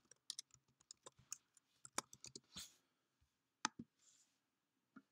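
Faint computer-keyboard typing: scattered, irregular key clicks, then a louder pair of clicks past the middle and one more near the end.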